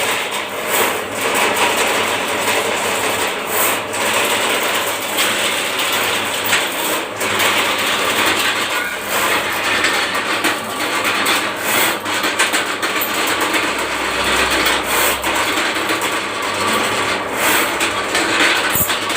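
Drain-cleaning machine working a spinning spring cable through a blocked drain pipe: a continuous uneven rattling and scraping with frequent sharp knocks.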